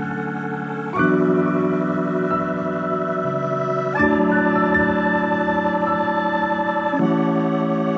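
Background music of sustained keyboard chords that change about every three seconds.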